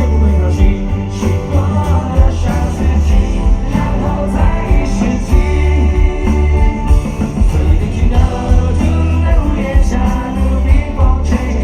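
A rock band playing live at high volume, with a sung melody over strong, heavy bass.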